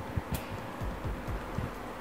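Typing on a computer keyboard: quick, uneven keystroke taps, several a second, with one sharper click about a third of a second in.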